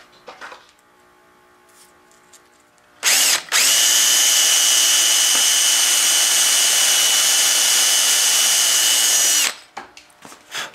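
Cordless drill boring a dowel hole into the end grain of a teak chair rail, about an inch and a half deep. A short blip about three seconds in, then a steady run of about six seconds with a constant whine, stopping near the end.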